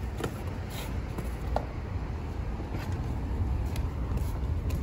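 Steady low background rumble with a few faint light clicks.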